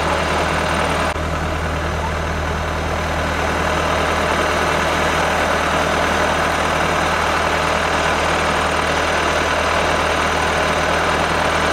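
Pulling tractor's engine idling steadily, a deep, even hum, while it sits at the sled waiting to be hooked up for a pull.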